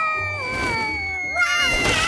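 A cartoon character's high-pitched, whiny vocal sound, its pitch wavering and dropping several times, over a long thin tone that slides slowly downward.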